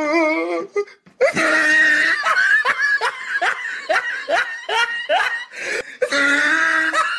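Laughter: a wavering laugh, a brief pause about a second in, then a long run of quick repeated laughs, about two to three a second.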